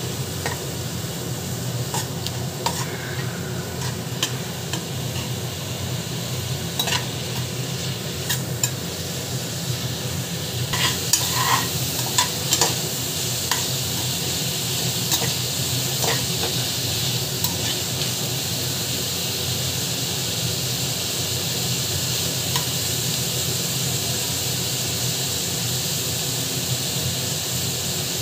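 Sliced onions and whole spices sizzling in hot oil in an aluminium pot as a perforated spatula stirs and scrapes them, with scattered clicks of the spatula against the pot in the first half. In the second half the sizzle is a steadier hiss.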